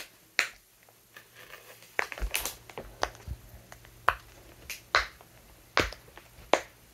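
LankyBox Boxy silicone pop-it fidget toy having its bubbles pressed, giving about a dozen sharp pops at uneven intervals.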